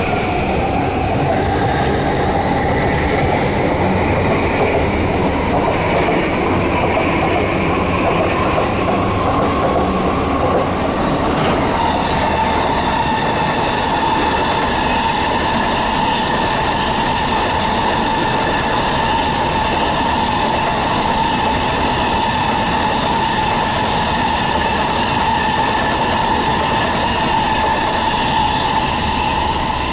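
Electric train running through a station. A whine rises in pitch over roughly the first ten seconds, then holds as a steady high whine with several tones over the rumble of the wheels.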